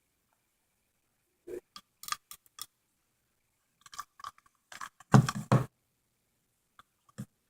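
Crunchy slime filled with beads and foam puff balls being squeezed and poked by hand: short bursts of crackling and small pops with silent gaps between, the loudest cluster a little past halfway.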